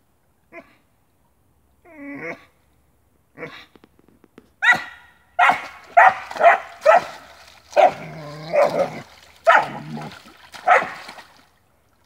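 Border collie barking repeatedly: a few faint, short calls at first, then loud, sharp barks about once or twice a second from about five seconds in.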